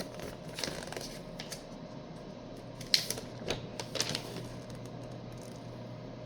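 Paper and cardboard being handled: several crisp clicks and short rustles in the first four seconds as the contents of a trading card deck box are taken out, then only a steady low hum.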